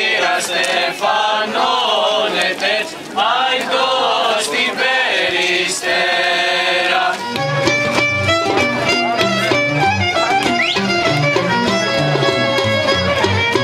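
A group of voices singing a Greek folk song without accompaniment; about seven seconds in, instrumental Greek folk music with a steady bass line starts up.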